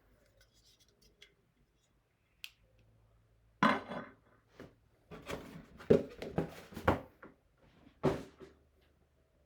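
Packaging being handled during the unboxing of a diecast model airplane: after a few faint ticks, a loud clack with rustling, then a run of clacks and rattles of box and plastic tray, and one more knock near the end.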